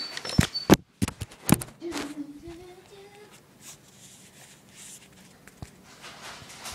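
Handling noise: several sharp knocks and bumps in the first second and a half, then a short, faint rising hum from a voice.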